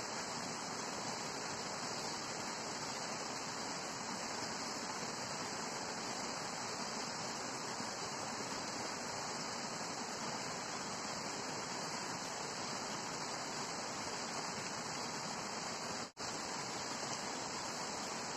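Steady, even rushing noise with no changes in it, cutting out for an instant about sixteen seconds in.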